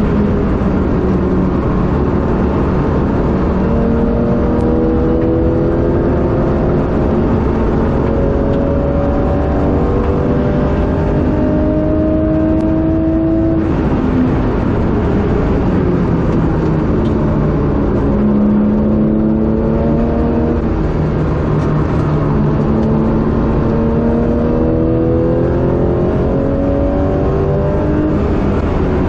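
Porsche 996 GT3 RS's naturally aspirated 3.6-litre flat-six heard from inside the cabin under hard acceleration, its note climbing and stepping down with each upshift. About halfway through the note drops suddenly and holds steadier for a few seconds, then climbs through the gears again, over steady tyre and road noise.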